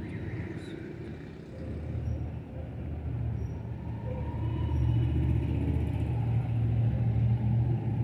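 Low, steady rumble that grows louder about three seconds in.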